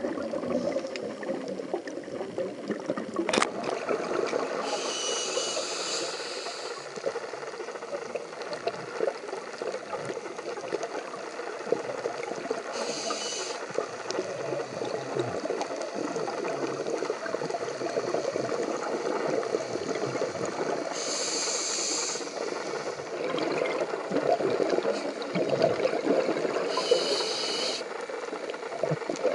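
Scuba diver breathing through a regulator underwater: four hissing breaths, several seconds apart, over a steady bubbly water rumble. One sharp click comes about three seconds in.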